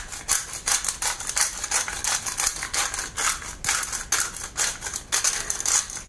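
Hand pepper grinder being twisted, grinding black peppercorns in a rapid run of crunching clicks, about three a second.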